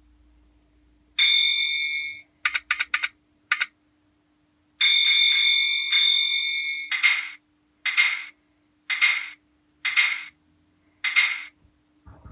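Recorded signal box bell sounds played through a small novelty-card sound module: a long ring, a quick run of four strokes and one more, a second long ring, then five single strokes about a second apart. A faint steady hum runs underneath, and a low thump comes near the end.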